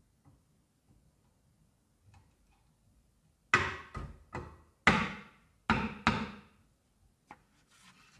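Six sharp knocks on a motorcycle engine's clutch cover as it is tapped down onto the crankcase, coming in two groups between about three and a half and six seconds in, with a faint click after.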